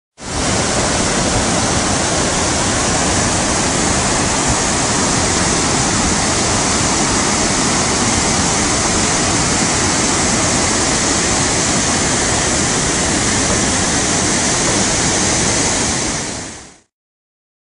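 Steady rush of the swollen, muddy Garona river in flood, a loud even noise that starts abruptly and cuts off about a second before the end.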